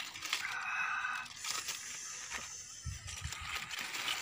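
Aluminium foil crinkling and tearing as hands peel it open, a rapid scatter of small crackles.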